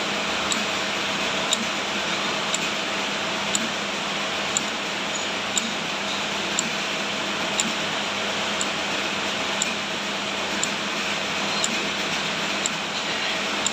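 Lanting moulding machine running steadily with a motor hum, and a sharp click about once a second as it cycles.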